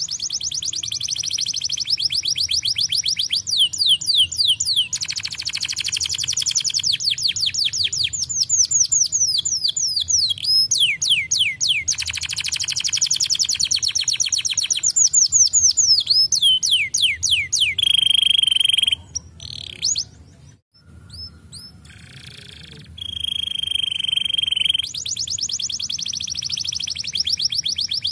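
Domestic canary singing a long song of rapid rolling trills made of quick down-slurred notes, broken in the second half by two steady held whistles and a short break about twenty seconds in.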